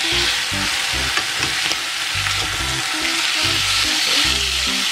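Beef steaks frying in butter in a hot pan, a steady sizzle, the second side searing after being turned.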